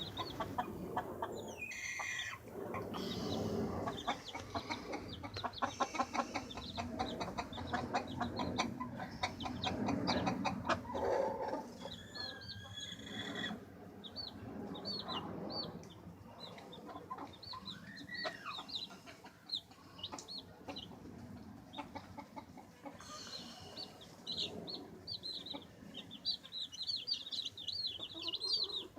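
Baby chicks chirping, with many short, high peeps overlapping, thickest near the end, over lower clucking and short taps.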